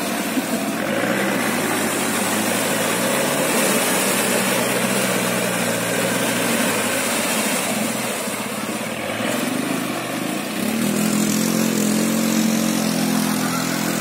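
Off-road trial truck's engine running under load while driving through mud, its note rising and falling with the throttle and climbing again about eleven seconds in.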